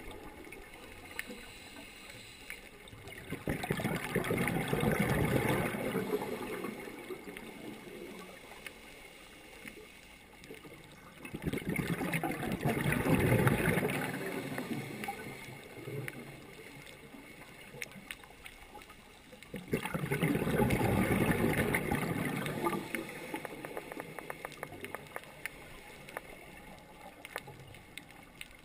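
Scuba regulator exhaust bubbles heard underwater: three long bubbling rushes of a diver exhaling, about eight seconds apart. Between them is a quieter hiss with fine crackling clicks.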